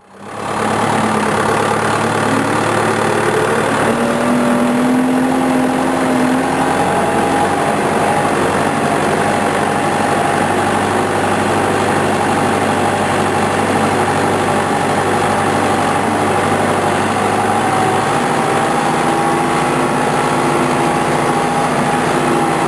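Engine of a farm vehicle running steadily while it is ridden, fading in at the start, with a brief rise in pitch a few seconds in.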